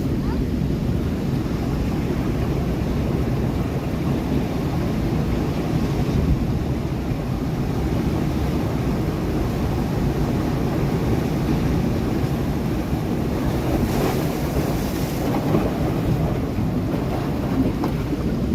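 Sea waves breaking on rocks: a steady low rumble of surf with wind buffeting the microphone, and a brighter hiss of washing water about two-thirds of the way through.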